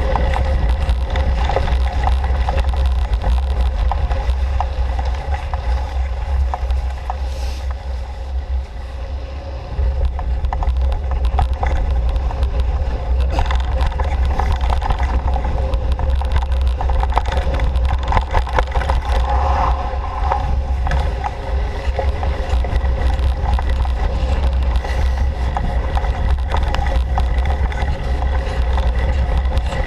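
Steady low rumble of wind and jolting on a moving camera's microphone, with a constant hum above it; it eases off briefly about eight seconds in.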